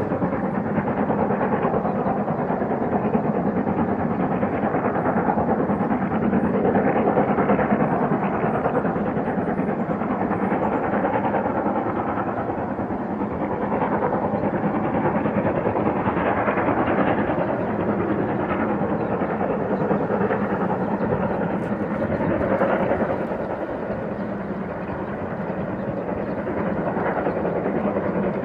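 German class 01 two-cylinder Pacific steam locomotive 01 202 working a passenger train under steam, its exhaust and running noise merging into a steady sound. The sound dips briefly about three quarters of the way through.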